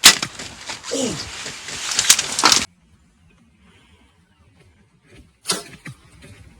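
Bow shot at a turkey: a sharp snap right at the start, then about two and a half seconds of flapping and thrashing that cuts off suddenly. A second brief sharp sound comes about five and a half seconds in.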